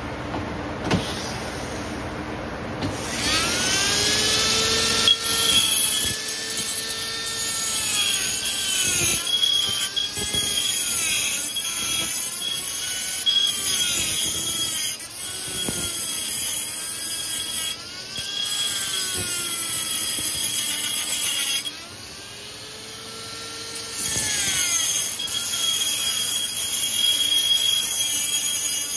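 Flex-shaft rotary tool spinning a cut-off wheel, grinding through a steel weld: a high whine over a grinding hiss, the pitch sagging each time the wheel bites into the metal and climbing back as it eases off. The tool gets louder about three seconds in and goes briefly quieter a little before three-quarters of the way through.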